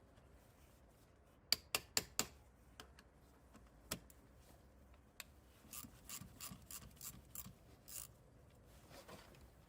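Socket ratchet clicking in short runs as the bolts around the top of a Land Rover rocker cover are undone: four quick clicks, a single one, then a longer run of about eight spaced clicks, with a soft metal scrape near the end.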